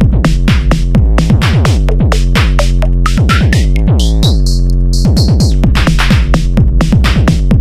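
Electronic dance music with a fast, steady drum-machine beat and synthesizer, with a rising sweep in the middle.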